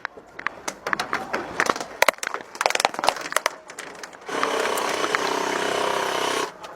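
Airsoft gunfire: scattered sharp cracks and clicks, then a steady full-auto burst of about two seconds that cuts off suddenly.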